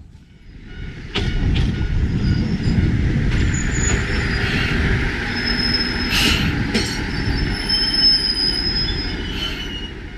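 Tenryū Hamanako Railroad diesel railcar pulling into the station right past the platform. A loud low rumble of engine and wheels builds about a second in, with a few sharp clicks, and a thin, high squeal sets in over the second half as it slows.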